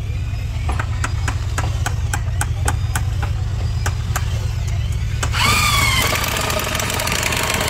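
A power drill starts about five seconds in and runs loudly, its whine dipping and then holding, as it drives a screw into a new plank on a wooden boat hull. Before it there are scattered knocks and taps over a steady low engine hum.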